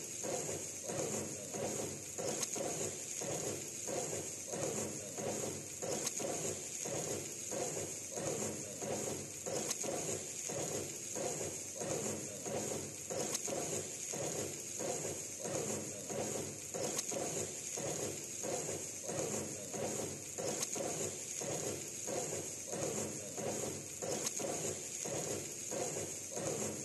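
Automatic wok-tossing fryer stir-frying rice: the wok swings and its stirring paddle clatters and scrapes through the rice in a steady rhythm, a little more than one stroke a second, over a steady high hiss.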